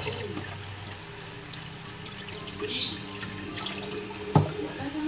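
Water running from a kitchen tap into a sink, with one sharp knock about four seconds in.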